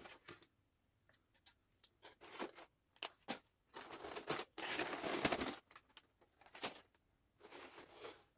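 Packing material from a mailed parcel being pulled open and handled: irregular rustling and tearing of paper, cardboard and plastic wrap, the longest and loudest stretch about halfway through, with shorter rustles before and after.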